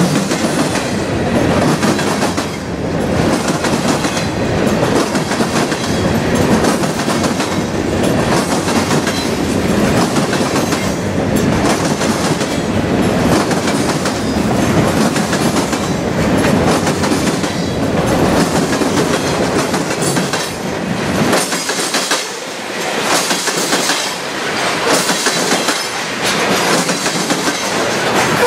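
CSX freight train's covered hoppers and boxcars rolling past close by: a steady rumble of steel wheels on rail with continuous clickety-clack clatter. The deepest rumble thins out for a few seconds about two-thirds of the way through.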